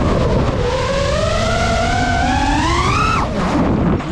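GEPRC Mark 5 FPV quadcopter's brushless motors whining. The pitch climbs steadily for about three seconds as the throttle rises, then drops sharply near the end as the throttle is cut, over a steady rumble of wind and prop wash.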